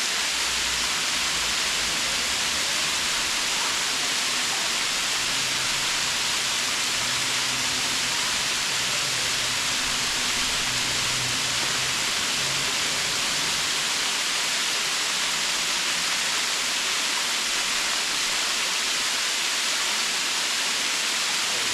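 Waterfall pouring: a steady, even rush of falling water, heavy in hiss.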